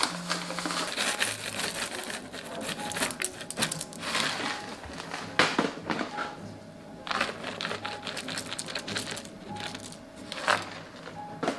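Light food-prep handling noise: quick clicks, taps and rustles as a plastic scoop and topping containers are handled and toppings are scattered onto a crepe, with a few louder knocks.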